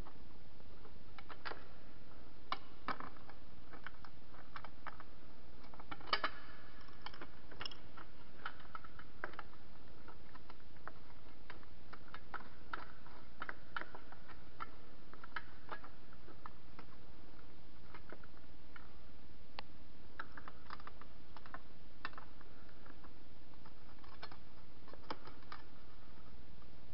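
Small metal clicks and ticks from a wrench turning the nut on a motorcycle licence-plate bolt, with the plate and its holder knocking lightly as they are handled. The clicks come irregularly and in clusters, around six seconds in, around thirteen seconds and again between twenty and twenty-six seconds, over a steady hiss.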